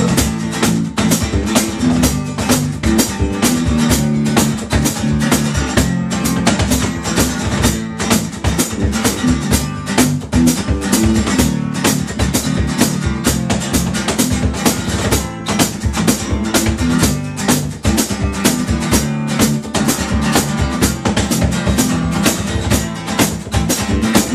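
Instrumental break of a small rock band: guitar and bass guitar playing over a steady hand-drummed box drum beat with cymbals, with no singing.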